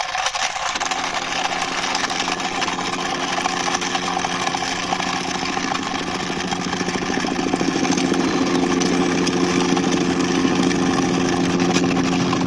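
Steady engine-like motor noise, a hum with a hiss over it that settles in about a second in and grows a little louder later on.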